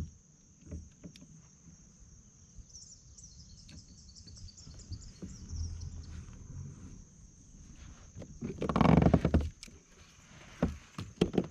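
Steady high-pitched insect chirring, with a short stretch of rapid pulsed chirps a few seconds in. About nine seconds in comes a loud rough rustle, followed by a few sharp knocks and clicks near the end, from handling the spinning rod and reel.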